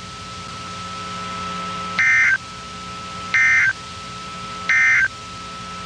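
NOAA Weather Radio SAME end-of-message signal: three short bursts of warbling digital data tones, about a second and a half apart, marking the end of the weekly test alert. A faint steady tone and hum sit underneath.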